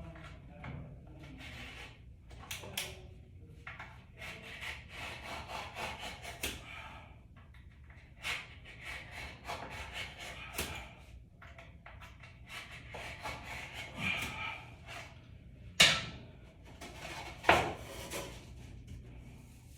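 Wooden pieces being scraped and rubbed in irregular rasping strokes as they are worked and fitted, with two sharp knocks near the end.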